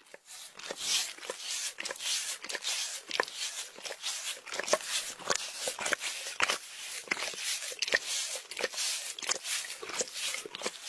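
A cat licking a man's hair. Rapid rasping licks come at about three a second.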